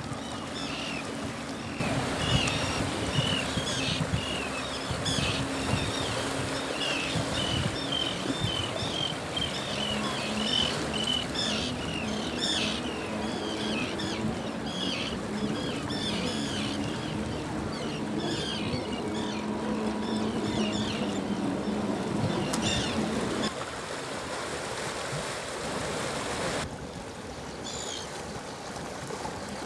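Terns calling over and over in short, sharp, quick notes, with sea water washing and splashing over rocks. A low steady hum runs underneath for much of it, and the calls stop near the end, leaving the water.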